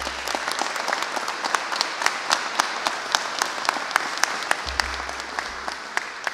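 Audience applauding: many people clapping at once, with individual sharp claps standing out, thinning slightly near the end.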